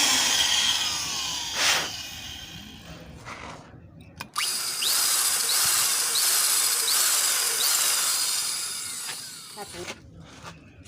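Electric drill with a 4.3 mm bit boring into a broken bolt stuck in a cylinder head. It runs in two spells: the first fades over the opening seconds, and the second starts with a click about four seconds in and stops shortly before the end.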